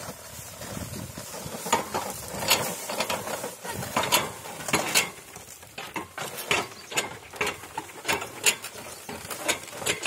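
Loaded bullock cart rolling over rough field ground, its wheels and frame knocking and clicking irregularly, several knocks a second.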